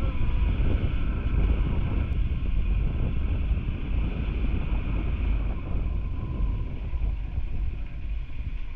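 Wind buffeting a helmet-mounted action camera's microphone over a motorcycle's engine running steadily at low road speed; the rumble eases off a little near the end as the bike slows.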